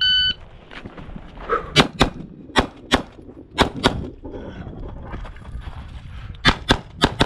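A shot timer's short start beep, then 9mm Glock 45 pistol shots fired in quick pairs, about ten in all, with a pause of over two seconds before the last two pairs.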